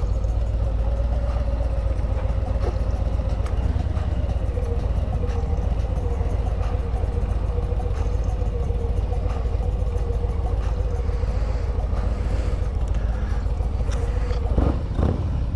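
Harley-Davidson Road Glide's V-twin engine running steadily at low speed, with a brief rise and fall in pitch near the end.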